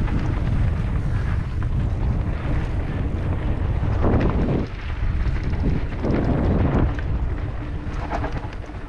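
Wind buffeting the microphone, a heavy low rumble, with two brief rushes of noise about four and six seconds in.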